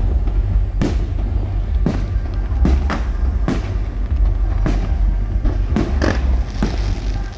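Aerial fireworks going off: a string of sharp bangs, roughly one a second with some in quick pairs, over a steady low rumble.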